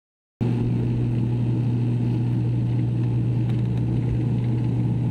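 Turboprop airliner's engine and propeller running, heard from inside the passenger cabin: a loud, steady drone with a strong low hum. It cuts in just under half a second in.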